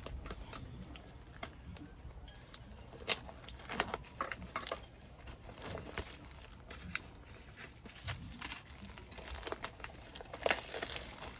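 Packaging being handled and unwrapped from a new car stereo: irregular crackling and clicking, the sharpest click about three seconds in.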